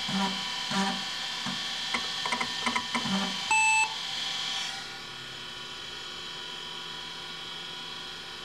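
Kalok Octagon KL-320 MFM hard drive's stepper motor seeking in a quick run of short, pitched chirps as setup writes data to the disk. About three and a half seconds in, a PC speaker gives a single beep of under half a second as setup prompts for the next floppy. A steady high whine goes on underneath.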